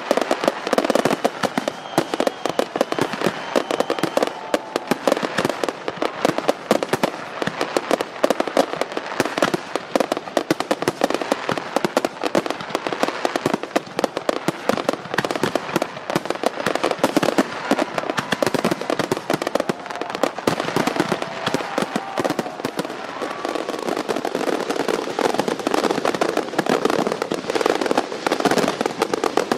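Fireworks display: a dense, continuous barrage of aerial shell bursts and crackling pops, going off many times a second with no pause.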